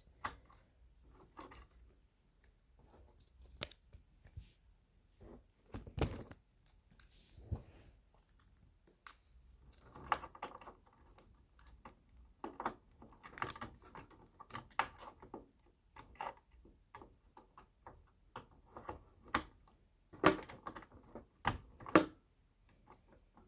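Irregular small clicks, taps and short scrapes of hands handling a RAM module and the plastic and metal parts of a NAS while fitting the module into its memory slot, with a few sharper clicks around six seconds in and again near the end.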